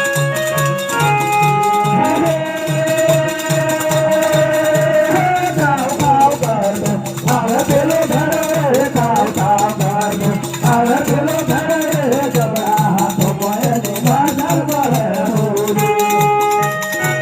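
Indian devotional music: a steady drum beat with a shaker rattling over it, and held keyboard notes near the start and end. From about six seconds in, a melody that bends and wavers takes over.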